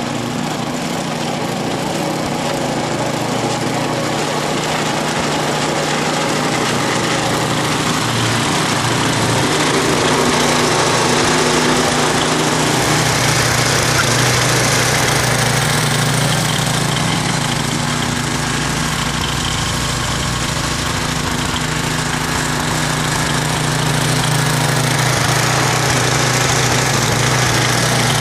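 Ariens two-stage snowblower with its engine running steadily under load while it clears snow, the auger and chute throwing snow. The sound grows louder over the first ten seconds or so as the machine comes up close.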